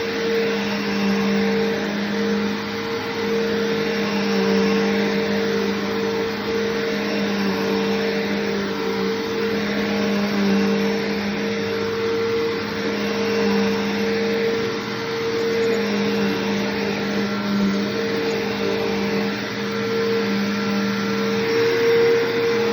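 Bissell Powerforce Bagged upright vacuum cleaner (model 3522-5) running: a steady motor hum with a low tone and a higher tone over a rush of air, swelling and easing slightly as it is worked.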